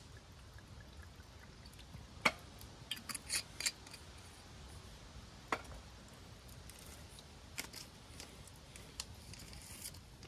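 Wood fire burning in a metal fire pit, crackling with scattered sharp pops. The loudest pop comes a little over two seconds in, then a quick cluster follows.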